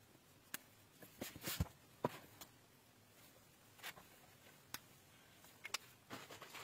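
Faint handling sounds of cardboard board books: scattered light taps and clicks, a short rustle, and a soft thud about a second and a half in.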